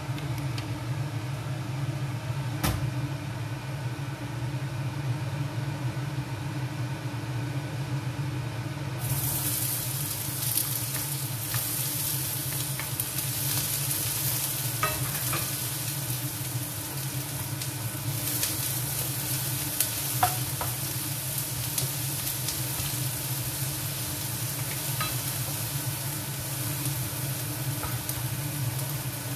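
Chopped onion hits hot oil in a frying pan about nine seconds in and starts sizzling steadily, with the scrape and tap of a wooden spoon stirring it. A steady low hum runs underneath throughout.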